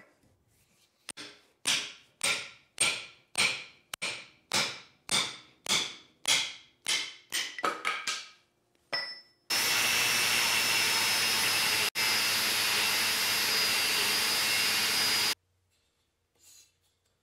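Hammer blows on a steel punch, about thirteen strikes at roughly two a second, each ringing, driving the old wooden handle out of a hammer head's eye. Then a steady gas hiss from a propane forge for about six seconds that cuts off suddenly.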